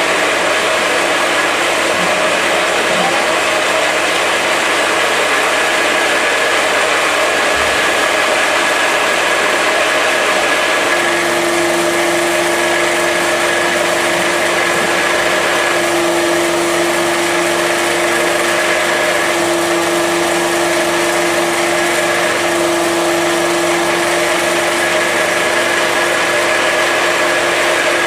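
Small animal-feed pellet mill driven by an electric motor, running steadily as feed is poured into its hopper. A new steady hum note joins about eleven seconds in.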